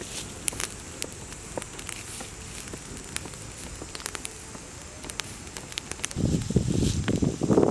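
Burning dry grass and straw crackling with scattered sharp pops. Near the end a louder rustling comes in as the burning straw is stirred with a stick.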